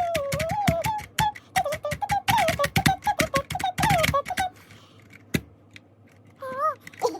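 A baby babbles and squeals while banging on a computer keyboard. The keys clack in a rapid, irregular run for the first four seconds or so, then the keyboard goes quieter, with one more short squeal near the end.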